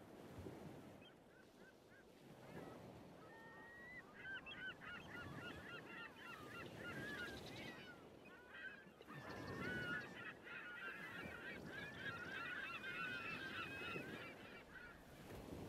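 A flock of birds calling: many short, overlapping calls begin about four seconds in and carry on almost to the end, over a low rush of wind.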